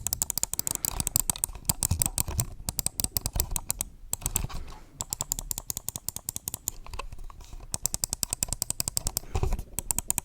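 Fast typing on a computer keyboard: a dense run of keystroke clicks, with brief pauses about two and a half and four seconds in.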